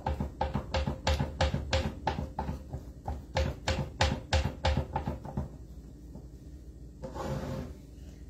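Fingertips pressing and patting pizza dough out in a round metal pan, giving dull knocks about four times a second that stop after about five seconds. A brief soft rustle follows near the end.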